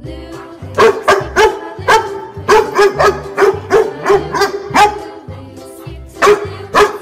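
A dog barking over children's background music with a steady beat. A quick run of short barks, about three a second, comes in after the first second and lasts about four seconds, then two more barks come near the end.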